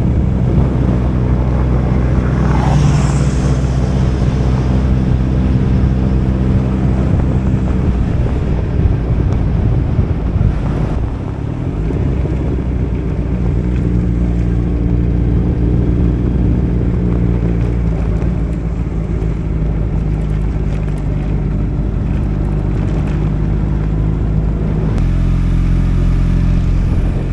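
Motorcycle engine running steadily while being ridden, its note shifting about eight seconds in and again near the end. There is a brief rush of noise about three seconds in.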